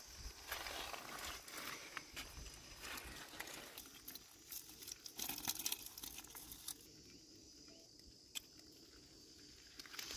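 Faint crunching and clicking of pebbles and gravel as a freshly caught eel-like baam fish wriggles on the stones and is pinned and picked up by hand. The sound is busiest in the first seven seconds, then thins out, with a single sharper click near the end.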